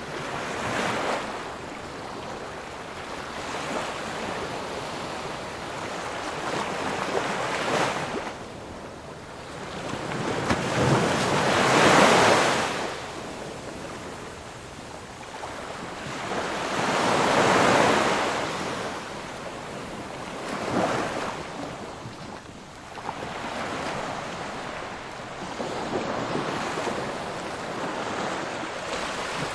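Ocean waves breaking on a shore, the surf swelling and fading in slow surges every few seconds, the biggest about twelve and seventeen seconds in.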